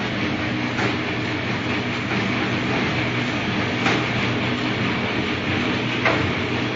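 Packaging machine running: a steady mechanical hum and clatter, with a sharp clack three times, about a second in, near the middle and near the end.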